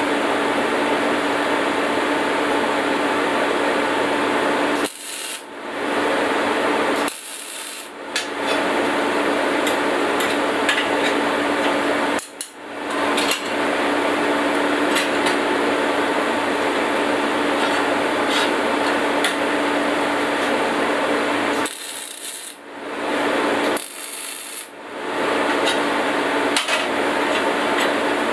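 A steady machine hum, with light metal clinks and scraping from a large wrench being worked on parts in a steel bench vise. The hum drops out briefly several times.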